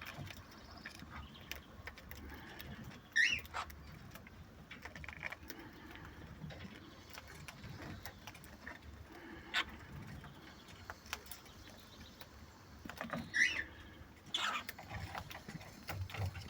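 Cockatiels pecking and nibbling at carrot, with small clicks throughout. A few short chirps come through, one about three seconds in and a couple more near the end.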